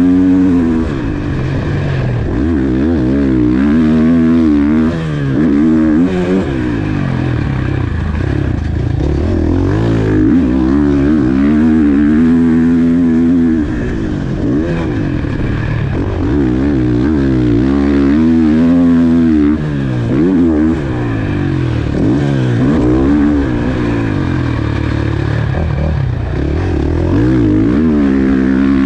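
KTM four-stroke motocross bike's single-cylinder engine revving hard under load, its pitch climbing and falling again and again as the throttle is opened and closed. It dips briefly every few seconds on gear changes or rolling off.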